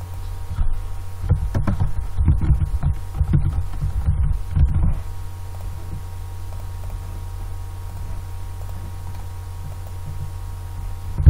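Computer keyboard typing: an irregular run of soft taps for the first few seconds, over a steady low electrical hum that carries on alone afterwards.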